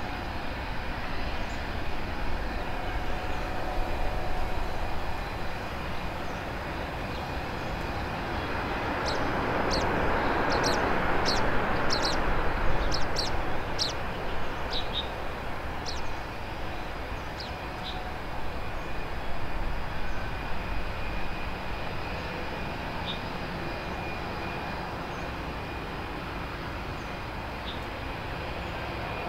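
Airbus A320 jet engines running as the airliner rolls slowly along a wet runway, with an even noise that swells about ten seconds in and then eases off. A run of short, sharp high ticks sounds through the middle.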